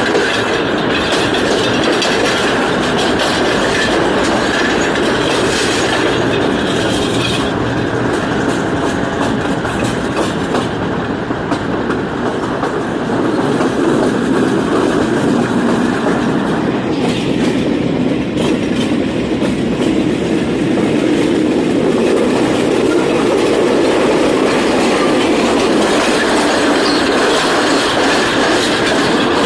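Moving passenger train, its wheels clattering steadily over the rail joints with a continuous running rumble.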